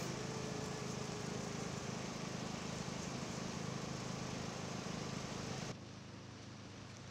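An engine running steadily, an even low hum. About six seconds in it drops away, leaving quieter, distant street ambience.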